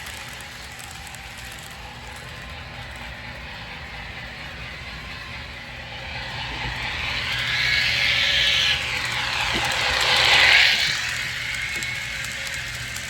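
HO scale model of a Milwaukee Road Class A Hiawatha 4-4-2 locomotive running on track, its motor and wheels whirring. It grows louder as it comes close, is loudest about ten seconds in, then fades as it moves away.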